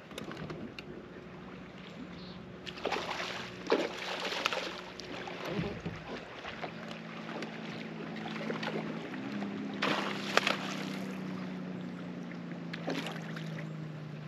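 Electric trolling motor on a bass boat humming steadily, its pitch stepping up twice as the speed is changed, with a few short bursts of rushing noise over it.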